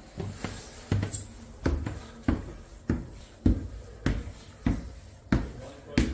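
Footsteps climbing a staircase: about ten steady thuds, a step roughly every 0.6 seconds.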